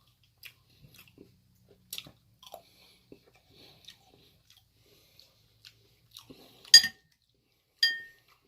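Close-up chewing and small wet mouth sounds of a person eating chickpea curry, then, near the end, a utensil clinks twice against a dish with a short ring, the first clink the loudest.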